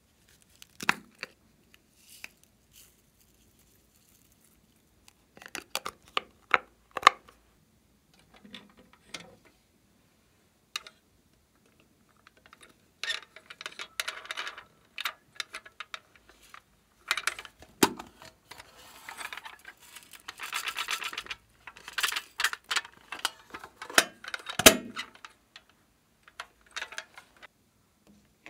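Small plastic and metal toy containers being handled and opened, with scattered clicks and knocks. Loose sequins rattle and clink in longer stretches as they are shaken out onto slime.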